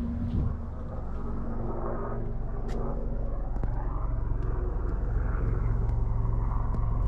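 A vehicle engine idling with a steady low rumble, with a few faint clicks over it.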